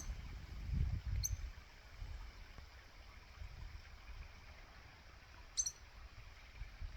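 A bird's brief high chirps, three of them spread over several seconds, over a low rumbling background.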